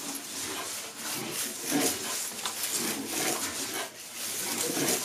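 Paper-covered firework fuse wicks and a paper tying strip rustling and clicking as they are handled, in irregular little bursts.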